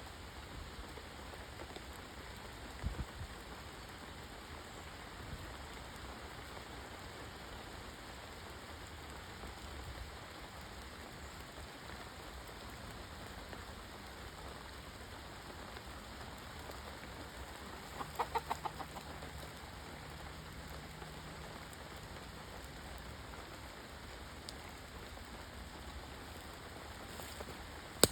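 A backyard chicken gives a quick run of about six clucks about two-thirds of the way in, over a steady hiss of rain.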